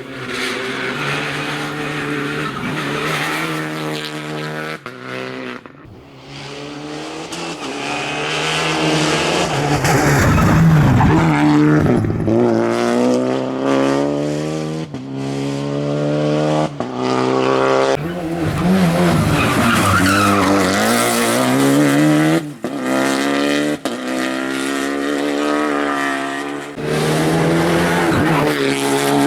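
Rally car engine revving hard, its pitch climbing again and again, broken by quick gear changes and lifts off the throttle.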